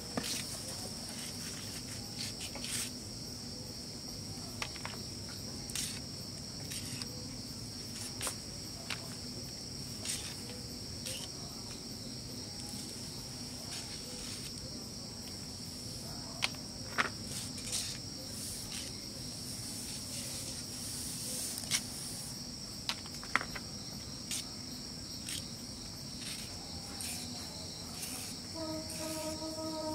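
Crickets chirring steadily, with scattered sharp clicks of a blade cutting through bean greens and stems. A short pitched sound with several tones comes in near the end.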